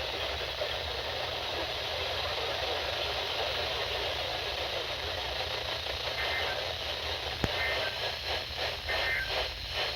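Weather radio receiver hissing with static between broadcasts, over a low rumble. Late on there is a sharp click, a few short high beeps, and the static turns choppy just before the broadcast voice comes back.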